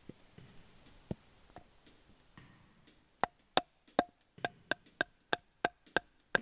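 A wooden baton striking the spine of an LT Wright GNS scandi-grind knife to drive it down through a round of soft tulip poplar. A few light knocks come first; from about three seconds in there is a quick run of sharp strikes, each with a short ring, about three a second.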